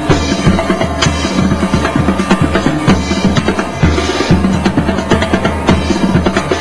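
Loud music with a busy, fast drum and percussion beat over a steady bass line.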